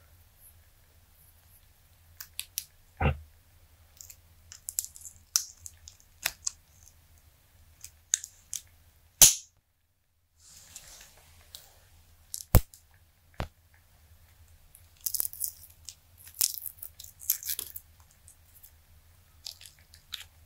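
Silicone molds being peeled and flexed off cured resin dice: scattered crackles, snaps and clicks as the silicone lets go of the resin. A sharp knock comes about nine seconds in, and a dense flurry of crackling near the end.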